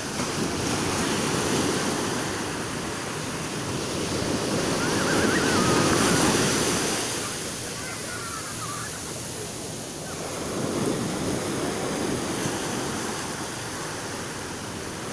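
Sea waves breaking on a beach, the surf rising and falling in slow surges about every five seconds, loudest around six seconds in.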